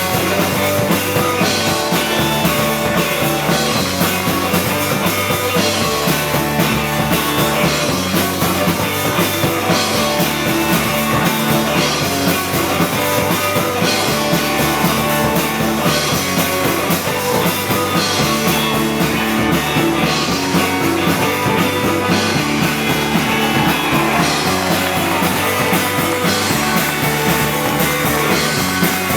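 Rock music with drums, playing steadily throughout.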